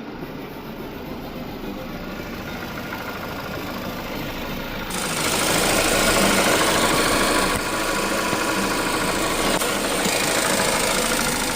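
Chevy Malibu running and being driven, engine and road noise getting noticeably louder about five seconds in. The car had a no-crank, no-start fault and now runs after its ECU was reprogrammed.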